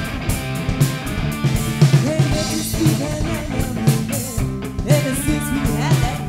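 Rock band playing: guitars over a drum kit keeping a steady beat, with a melodic line gliding up and down in pitch from about two seconds in.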